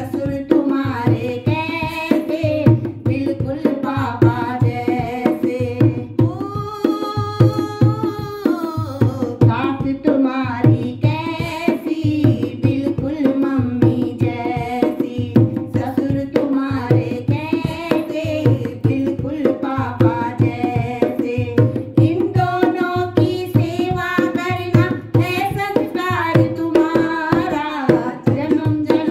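Women singing a Hindi folk wedding song (banna-banni geet) over a hand-played dholak keeping a steady beat. A long held sung note comes about seven seconds in.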